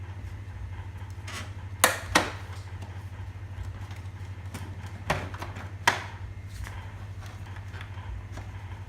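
Four sharp plastic clicks, two about two seconds in and two more near six seconds, as the clip-fastened plastic condensate drain tray of a wall-mounted air conditioner indoor unit is pried loose. A steady low hum runs underneath.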